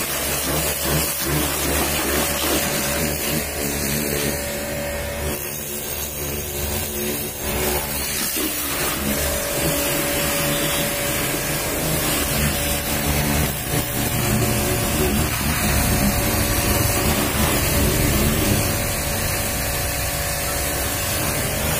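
Pressure washer running steadily, its motor humming under the hiss of the high-pressure water jet splattering on a car's metal body panels and wheel.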